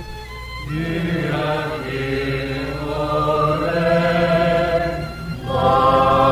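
Choir with orchestra holding sustained chords in the closing bars of a Brazilian waltz. A little after five seconds in the sound dips briefly and a new, louder chord comes in.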